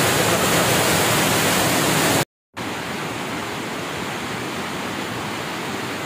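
Rushing water of a waterfall and mountain stream, a steady even hiss. About two seconds in it cuts out abruptly for a moment, then carries on a little quieter.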